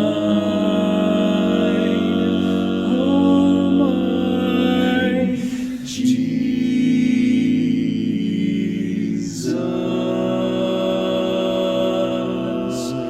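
Men's a cappella barbershop voices holding long sustained chords in close harmony in a slow lullaby, the chord changing about five and a half seconds in and again about nine and a half seconds in.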